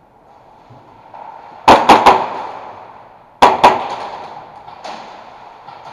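Airsoft gunfire: three sharp cracks in quick succession, then two more about a second and a half later and a fainter one after that, echoing off the warehouse walls.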